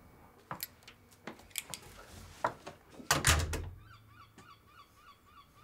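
Clicks and rattles, then a door shutting with a heavy thud about three seconds in. Just after, an evenly repeating honk-like tone starts, about four pulses a second, and keeps going.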